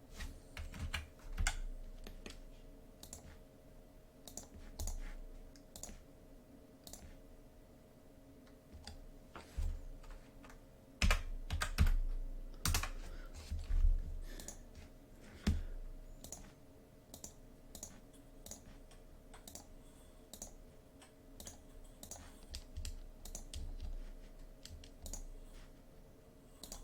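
Computer keyboard typing and mouse clicks at irregular intervals, a few louder clicks about halfway through, over a faint steady hum.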